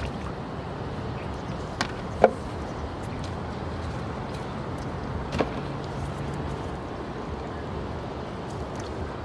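Steady low open-air rumble, with a few short sharp knocks, the loudest about two seconds in and another about five seconds in, as a blue plastic washtub with a stick in it is lifted and handled at the water's edge.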